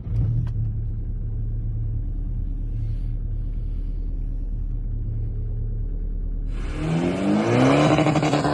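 Straight-piped VW Golf Mk6 1.6 TDI four-cylinder diesel idling steadily with a deep rumble, seconds after a cold start in frost. About seven seconds in, the car is heard accelerating hard, its engine note rising and louder.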